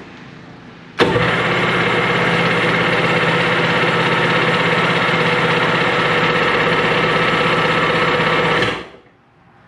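Sea-Doo SP's Rotax two-stroke engine being turned over on its electric starter with the choke on, after a carburetor rebuild. It is a steady sound that starts suddenly about a second in, holds for about eight seconds, and stops quickly near the end.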